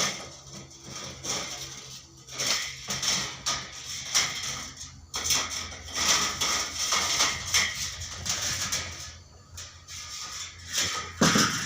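Irregular metallic clattering and scraping, consistent with a sawmill bandsaw blade being taken off and fitted, over a steady low hum.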